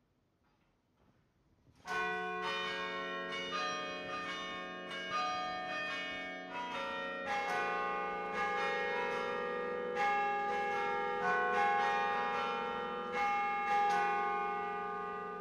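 Carillon bells playing a tune: many tuned bells of different pitches struck in quick succession, each note ringing on and overlapping the next. The playing starts about two seconds in.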